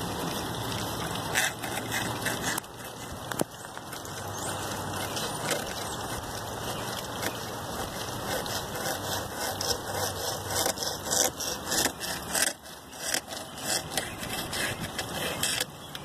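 Hacksaw blade of a small water-wheel-driven model sawmill rasping through a piece of balsa wood in rapid, irregular strokes, over the steady splash of water falling onto the wheel.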